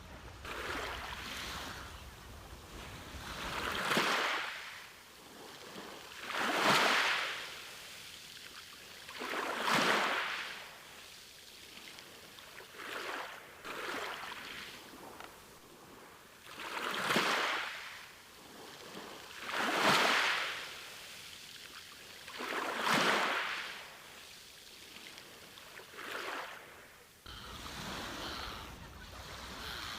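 Sea waves breaking and washing on a beach, the surf swelling and fading about every three seconds. A low rumble sits under it at the start and comes back near the end.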